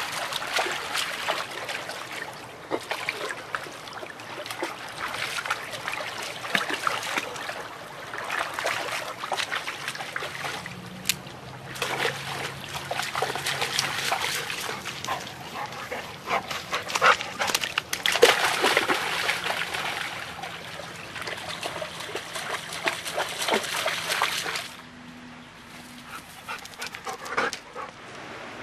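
A black Labrador wading and splashing through a shallow stream, water sloshing and slapping around its legs in irregular bursts. The splashing stops a few seconds before the end, leaving only the stream's quieter running water.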